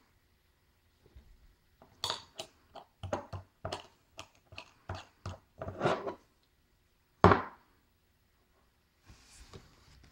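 Close handling noise as a hand turns a plastic N scale locomotive shell: a run of irregular clicks and taps, then one louder knock about seven seconds in and a brief rustle near the end.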